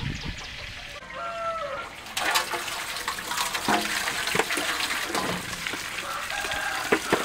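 Water running from an open pipe into a steel basin, starting about two seconds in, with splashes as tomatoes are tipped into the basin from a woven basket.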